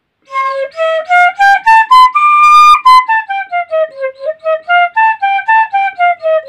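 Santali tirio, a bamboo transverse flute, played as a solo melody. A quick run of notes climbs step by step to a high note held for about a second, then a falling run of short, separate notes leads into a lilting phrase of quick notes, about four a second.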